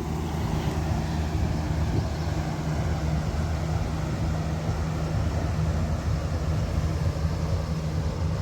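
River tour boat's engine running with a steady low hum.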